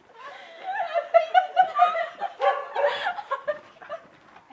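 A young woman laughing heartily in a run of quick, rhythmic bursts, which grow louder about two and a half seconds in and then die away.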